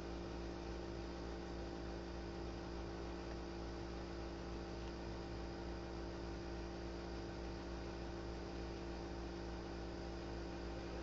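Steady electrical hum with an even background hiss.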